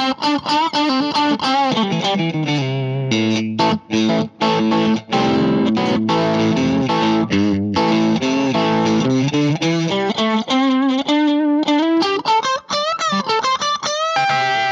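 Electric guitar played through the Boss IR-2 amp-and-cabinet simulator on its Tweed amp model, with a little gain for a light overdrive. Rhythm-style chords come first, then single-note phrases with wavering vibrato from about ten seconds in.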